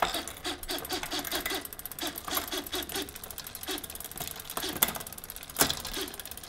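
Small electric motor of an XSHIFTER wireless shifter running in short stepping bursts, several a second, as it moves a 9-speed rear derailleur toward the biggest cog. The bursts thin out after about three seconds, and two sharp clicks come near the end.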